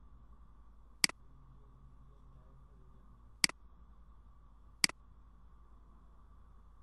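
Computer mouse button clicked three times, well apart, each click a quick double tick of press and release, over a faint steady hum.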